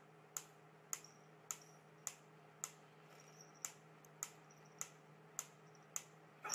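Wooden pyramid-style mechanical metronome ticking at a steady beat, a little under two ticks a second.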